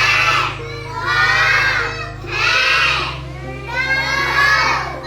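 A class of young children shouting out answers together in unison, four loud high-pitched chanted calls about a second apart.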